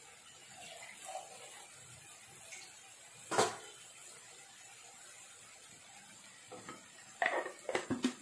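Rendang spice paste being sautéed in oil in a pan until fragrant, with a faint steady sizzle. One sharp knock about three and a half seconds in, and a quick run of knocks and clatters near the end.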